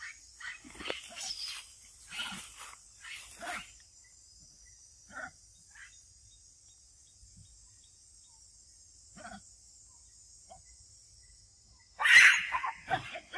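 Monkeys making short, sudden sounds: a cluster in the first few seconds, a few scattered ones, then a loud harsh burst near the end. A steady high hiss runs underneath.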